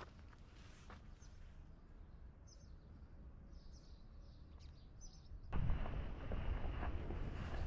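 A couple of footsteps, then faint small birds chirping. About two-thirds through, the sound cuts suddenly to a louder low rumbling noise with footsteps.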